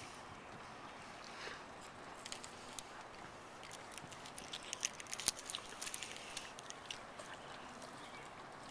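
Faint scattered clicks and crackles of someone eating, thickest about four to six seconds in, over a steady low hiss.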